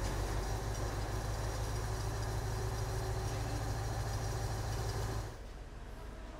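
Crane's engine running steadily with a low hum, which cuts off abruptly about five seconds in, leaving a quieter background.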